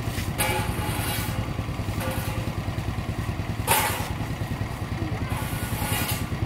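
A vehicle engine running steadily with a low, fast-pulsing rumble, with three short bursts of noise over it about half a second, three and a half and six seconds in.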